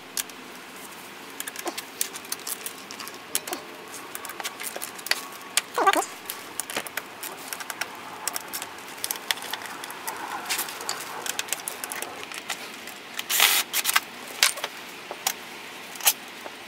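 Metal tools and the aluminium casing of a Nissan Leaf battery module clicking, tapping and clinking as they are handled, in irregular sharp ticks, with one louder short rattle about thirteen seconds in.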